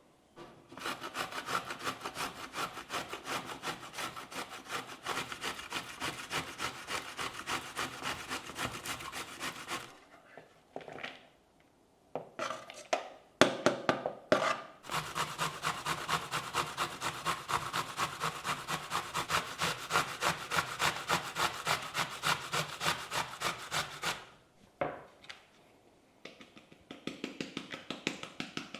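Rhythmic rasping strokes of hand food preparation, about two or three a second with a faint metallic ring, in two long runs. A few knocks fall in the pause between the runs.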